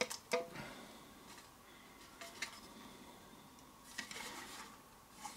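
Plastic plug-in uplighter being handled: a few light clicks and taps near the start and about two and a half seconds in, then faint rubbing about four seconds in.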